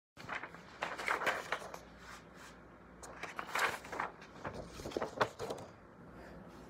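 Handling noise of the recording phone or camera being picked up and positioned: a string of irregular knocks, bumps and rubs that stop about five and a half seconds in.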